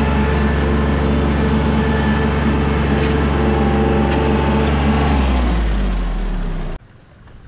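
An engine runs steadily at a constant speed, then slows with a falling pitch and shuts off abruptly about seven seconds in.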